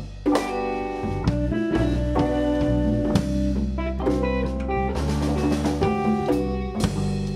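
Background music with drums and guitar, a steady beat with sustained notes.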